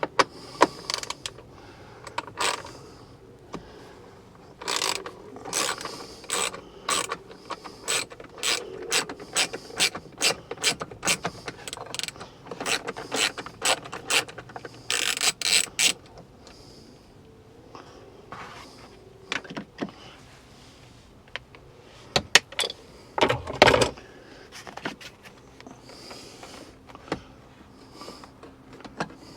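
Ratchet wrench clicking in short runs as it turns out a 7 mm bolt holding an interior trim panel, with a couple of louder knocks about two-thirds of the way through.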